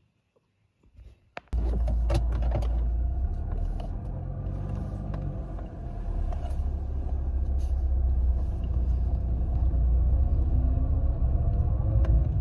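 Car engine running, heard from inside the cabin as a steady low rumble that starts abruptly about a second and a half in, after near silence.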